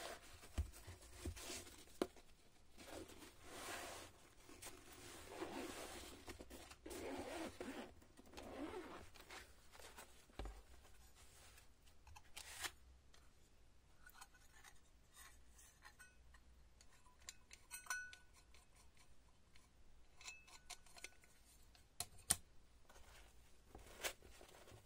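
Zipper on a nylon carry case being drawn open in several rasping pulls over the first ten seconds or so. This is followed by quiet handling of plastic parts in a foam insert, with a few sharp clicks.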